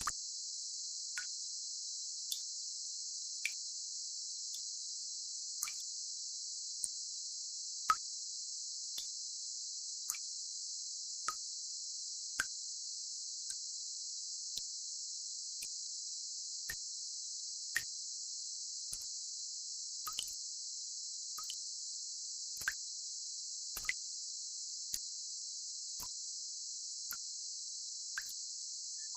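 Tinnitus-masking sound: a steady, even high-pitched hiss, with soft drip-like plops about once a second.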